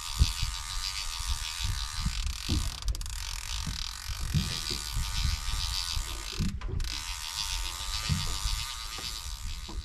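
Small baitcasting fishing reel ticking steadily with its clicker ratchet engaged while a large fish is fought on the line, with irregular low thumps underneath.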